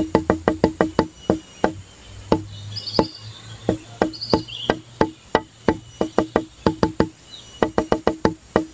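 Background music made of quick, evenly spaced wood-block-like clicks, each on the same pitch. The clicks thin out to a few scattered hits in the middle, then pick up again.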